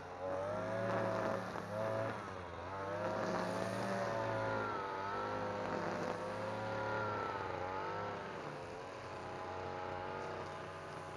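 NAC-BC520V petrol brush cutter's two-stroke engine running at high revs, its pitch dipping and recovering again and again as the spinning nylon line cuts through grass.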